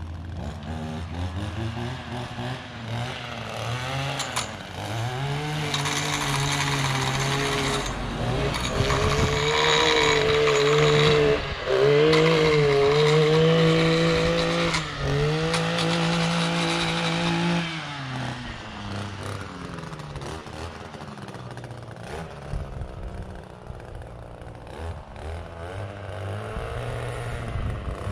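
Gas stick edger's two-stroke engine cutting, revving up and down several times, then held at high revs before it drops back about two-thirds of the way through and runs quieter.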